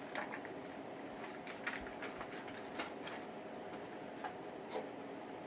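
Scattered light clicks and knocks of a plastic toy blaster being handled, over a faint steady hum.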